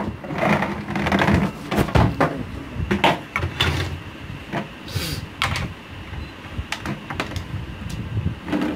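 Irregular clicks and knocks of small objects being handled and set down on a bench, likely a multimeter and its probes being picked up and readied.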